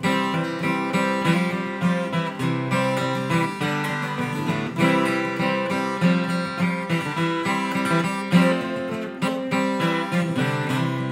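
Acoustic guitar strummed in a steady rhythm, chords ringing in an instrumental break with no singing.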